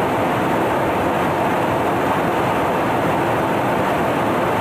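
Steady rushing noise of airflow and jet engines aboard an aircraft in flight, even and unchanging throughout.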